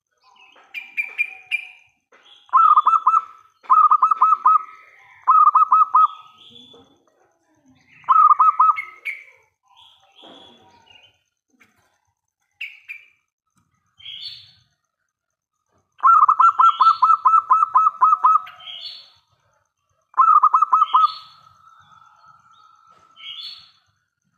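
Zebra dove (perkutut) singing: repeated bouts of rapid, stuttering cooing notes, the longest running about two seconds, with short higher chirping notes between the bouts.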